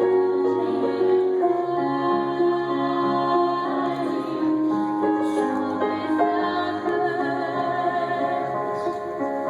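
Music: a song with long held notes, a female voice singing over keyboard accompaniment.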